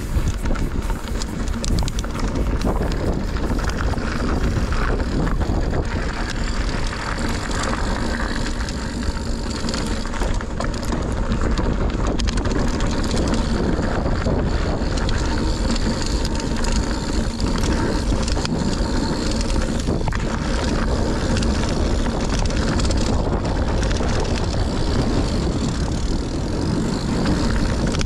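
Scott Ransom 910 mountain bike descending a dirt trail: wind buffeting the action-camera microphone over the steady rolling of tyres, with many small clicks and rattles from the bike throughout.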